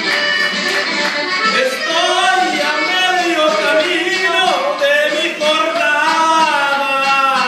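Live band playing a Latin-style song, an accordion-like melody over guitar and drums, with a male singer.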